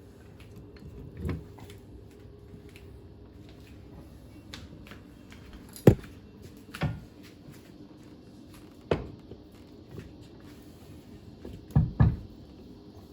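Scattered knocks and clunks from handling parts and tools while fitting a stern drive. The loudest comes about six seconds in, and a close pair near the end.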